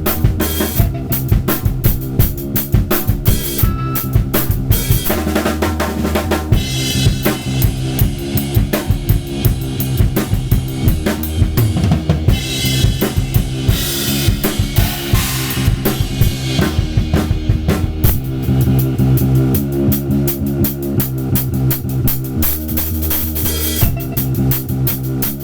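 Drum kit played in a busy, fast improvised pattern over a backing of sampled audio with steady low tones that shift every few seconds.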